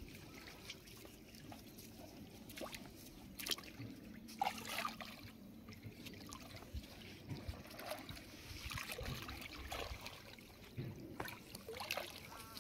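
Water sloshing and trickling around a person's legs as they wade through a calm river, a run of small irregular splashes.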